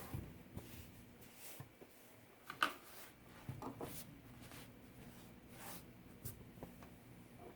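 Faint rustling and a few light clicks as a chainsaw is wiped down and handled by hand, the clearest click about two and a half seconds in.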